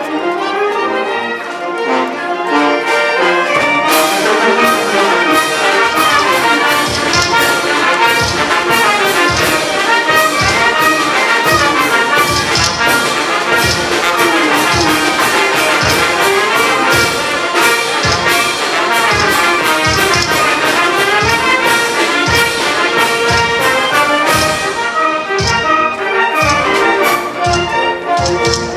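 Brass band playing a dance tune. A steady percussion beat comes in about four seconds in and carries on under the melody.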